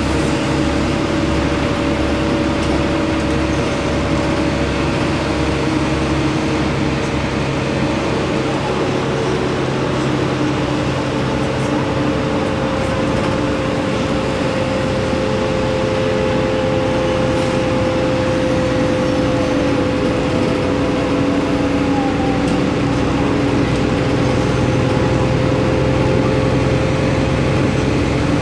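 Inside a bus driving along a highway: steady engine drone and road noise, with a few held tones that shift slowly in pitch.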